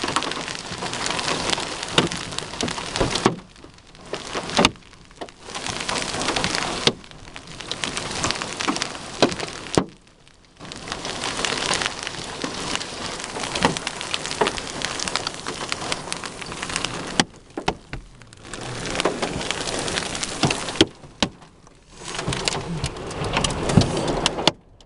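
Hail just over golf-ball size and heavy rain pelting down from a tornadic supercell, with sharp cracks of single hailstones striking. The downpour noise drops away abruptly about five times and comes back a second or so later.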